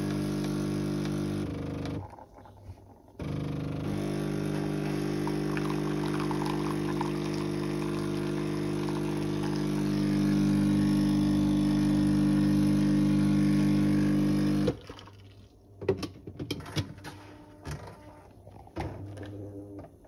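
Jura E8 automatic coffee machine running with a steady hum as it brews coffee into the cup, cutting out briefly near the start, getting louder about halfway, then stopping abruptly. A few clicks and knocks follow.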